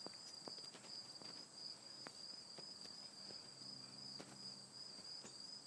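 Faint, steady, high-pitched insect trill, such as a cricket's, with a few soft clicks scattered through it.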